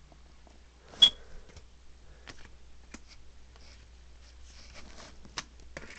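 Yu-Gi-Oh! trading cards being flipped through by hand: soft scattered clicks and slides of card on card, with one sharp snap about a second in. A low steady hum runs underneath.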